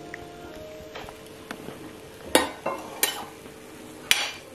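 Metal serving spoon scraping and clinking against a white enamelled skillet as cooked mushrooms are scooped out, with three sharp clinks in the second half.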